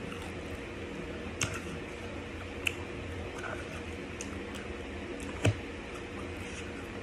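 Chewing and mouth sounds of someone eating a fried hot chicken tender, with three sharp clicks, the loudest about five and a half seconds in, over a steady low hum.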